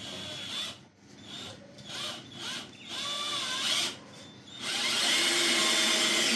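Power drill driving a self-drilling decking screw into a wooden rafter. It starts with several short trigger bursts about once a second, then runs steadily from about two-thirds of the way through as the screw pulls in.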